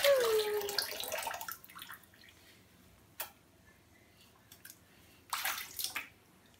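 Water splashing as a toddler pours it from a plastic cup into a filled sink. There is a loud splash over the first second and a half, with a short falling vocal sound at its start, and a second splash about five seconds in.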